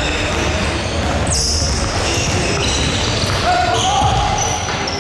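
Basketball game sounds in a large hall: a ball being dribbled on the wooden court, sneakers squeaking again and again, and players' voices calling out.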